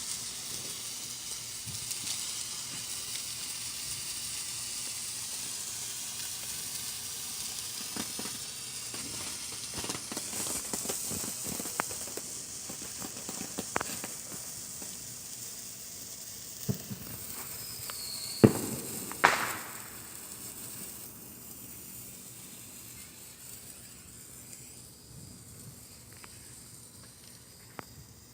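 Small consumer firework burning with a steady fizzing hiss, broken by scattered pops and cracks, the loudest two coming close together a little past the middle. The hiss dies away over the last several seconds as it burns out.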